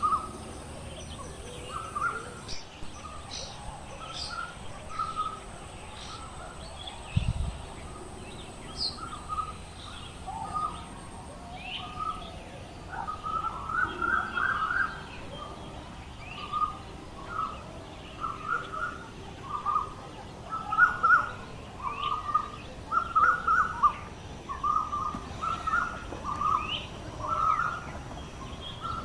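Birds calling: short calls repeating about once a second, getting denser in the second half, with fainter high chirps over them. There is a single low thump about seven seconds in.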